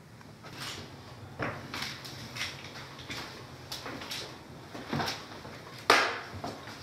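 Footsteps and things being handled: a series of soft knocks and clicks, with one sharp, loud knock just before six seconds in, like a drawer or an object being set down.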